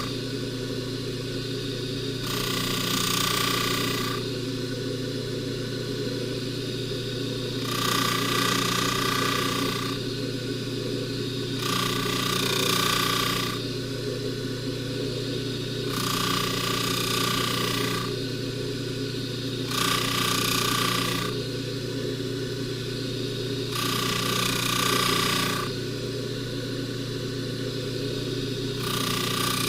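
Bench buffer motor running with a steady hum while a silver box chain is pressed against the spinning buffing wheel in repeated passes. Each pass adds a louder, higher whirring hiss for about two seconds, about every four seconds.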